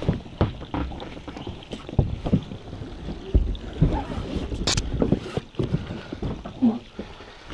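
Irregular knocks, thumps and rustling as an inflatable PVC boat with an air-deck floor is handled and set onto the water, with one sharp click a little past the middle.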